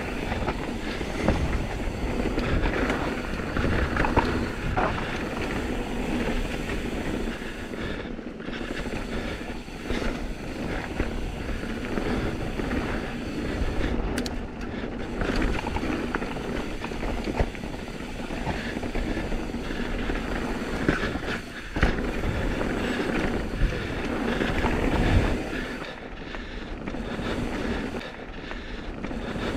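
Intense M16 downhill mountain bike descending a dirt forest trail: tyres on dirt and the frame, chain and parts rattling and clattering over roots and rocks, with many small knocks.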